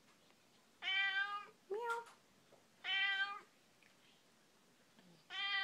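A long-haired cat meowing repeatedly: three long, level meows, each followed by a pause, and a short rising meow right after the first.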